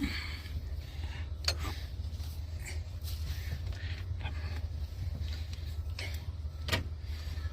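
A steady low hum, with a few sharp knocks or clicks, the clearest about a second and a half in and again near the end.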